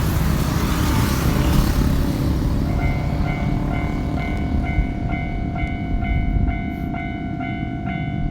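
Japanese railway level crossing warning bell ringing its repeated electronic clang about twice a second; it starts nearly three seconds in. Before that, a loud rushing rumble of train noise fades away under it.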